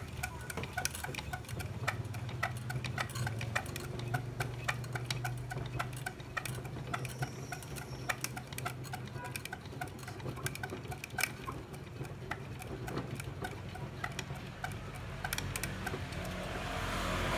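Coil-winding jig turning as enamelled copper wire is wound onto its plastic coil former, with a fast, uneven ticking over a steady low hum.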